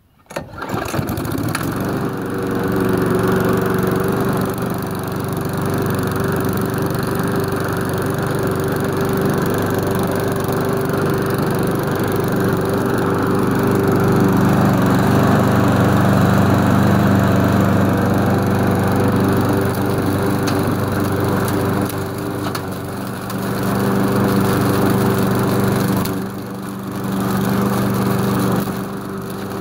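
A Masport two-blade mulching lawn mower with a Briggs & Stratton 375-series four-stroke engine starts up about half a second in, then runs steadily at speed. The sound is louder in the middle and dips briefly twice near the end.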